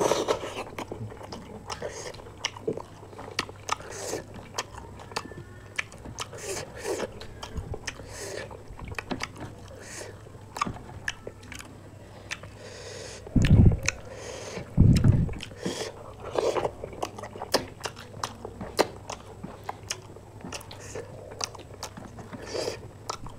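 Close-miked eating: people chewing and biting chicken pakoda and rice eaten by hand, with many small sharp mouth clicks and crunches. Two dull low thumps come about halfway through.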